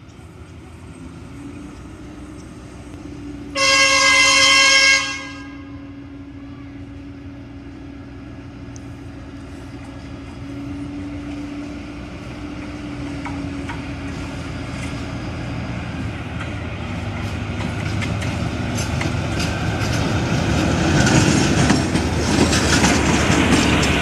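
BB 303 diesel-hydraulic locomotive: the engine drones steadily, and the horn gives one loud blast of about a second and a half, about 3.5 s in. The engine and rail noise then build steadily louder as the locomotive gets under way, with clicks from the wheels on the rails near the end.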